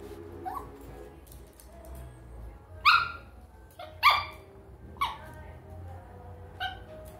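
Small dog barking to get its owner to play: a short rising yelp, then three sharp high-pitched barks about a second apart and a smaller bark near the end.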